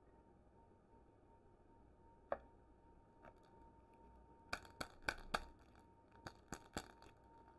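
Sharp plastic clicks and crackles as the wrapped ball lollipop and its plastic holder are gripped and turned in the fingers: one click about two seconds in, a quick run of four around the middle, then three more soon after.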